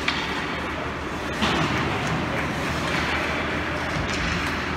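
Ice rink ambience during a youth hockey game: a steady wash of play and spectator noise, with a short tick just after the start and a louder stretch from about a second and a half in.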